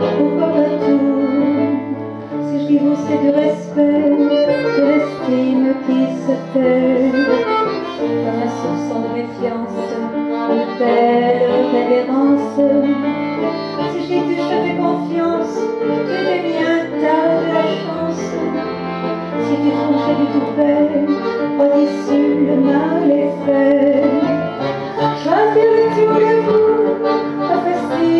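Live band music for a chanson, playing continuously: held chords over a bass line that steps from note to note.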